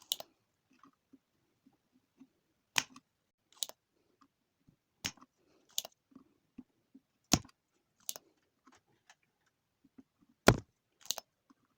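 Spring-loaded desoldering pump being cocked and fired to suck solder from an amplifier IC's pins: sharp clicks in pairs under a second apart, repeating every two to three seconds.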